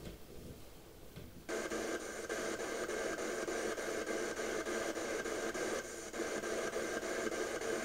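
Spirit box sweeping through radio frequencies: static hiss chopped into a rapid, even stutter, switching on abruptly about one and a half seconds in, with a brief drop shortly before the end.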